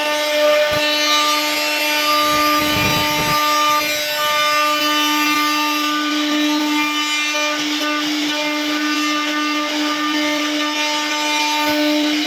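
CNC router carving a relief design into wood: the spindle runs with a steady pitched hum while the bit cuts with a continuous rough, rasping noise.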